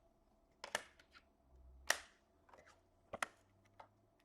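Trading cards being handled at a table: three sharp card flicks and snaps, the loudest about two seconds in.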